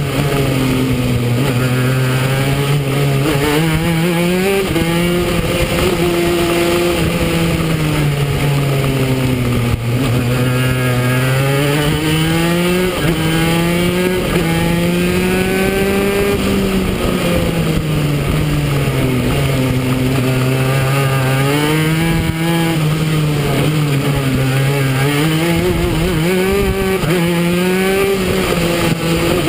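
Go-kart engine heard onboard. Its pitch climbs as the kart accelerates and drops as it slows for corners, rising and falling about four times.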